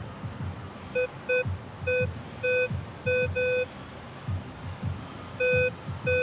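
Metal detector giving short, mid-pitched beeps as its coil sweeps over a buried target beside a dug hole, about eight beeps singly and in pairs with a pause in the middle: the detector signalling metal still in the ground.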